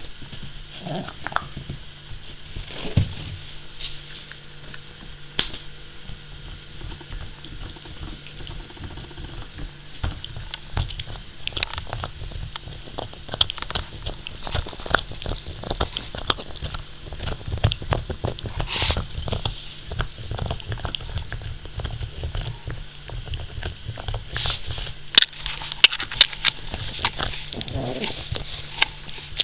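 Cavalier King Charles spaniel gnawing a deer antler, its teeth clicking and scraping on the hard antler in quick, irregular strokes.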